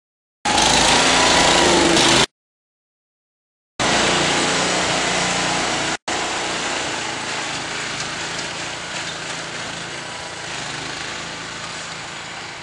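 Ride-on lawn tractor engine running steadily, heard through a small camera's microphone with a lot of hiss, in two short clips that cut abruptly to and from dead silence: a louder burst in the first couple of seconds, then a longer stretch that tapers off slightly.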